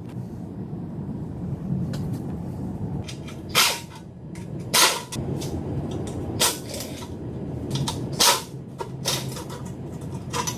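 Loud, sharp knocks and clanks of tools and parts being handled while working on a car's drivetrain: four strong ones a second or two apart and a few fainter ones, over a steady low hum.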